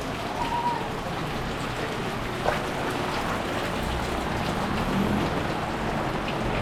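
Steady rain falling, with traffic noise underneath; a single short knock about two and a half seconds in.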